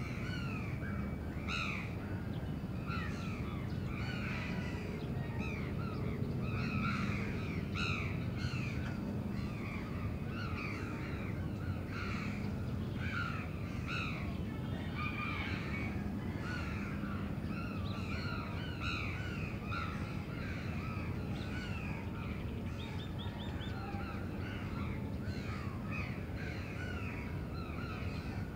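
Many crows cawing without pause, their calls overlapping, over a low steady hum of the city.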